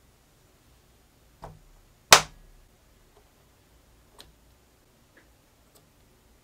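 Metal parts of a model Wankel rotary engine knocking together as the finned rotor housing is fitted over its dowel pins onto the end plate: a soft knock, then one loud, sharp clack about two seconds in, then a few faint clicks.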